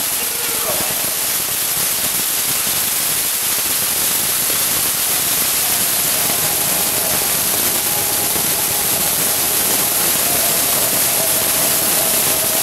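Steady, dense hiss of fountain fireworks and hand-held flares burning, mixed with the noise of a large crowd.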